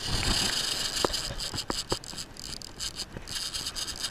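Wind buffeting the microphone over the wash of small waves breaking on the beach, with a few sharp, scattered clicks from the rod and reel being handled.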